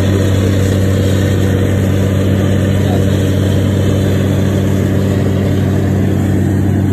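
Truck-mounted borehole drilling rig running with a steady engine drone that holds one pitch, while water and rock cuttings spray out around the drill pipe.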